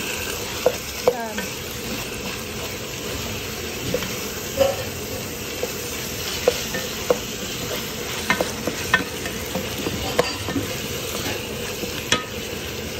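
Minced beef sizzling as it browns on high heat in a pot, with a wooden spoon stirring and breaking it up. The spoon knocks against the pan now and then, a dozen or so short clicks over the steady sizzle.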